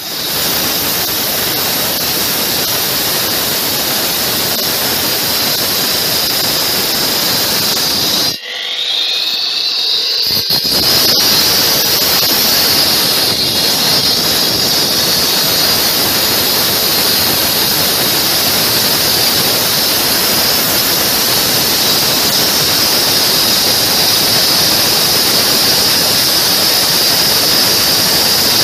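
Slab cutter sawing through a concrete slab, a loud steady grinding with a high blade whine over it. About eight seconds in the cutting noise briefly drops away and a whine rises in pitch before the full sound comes back.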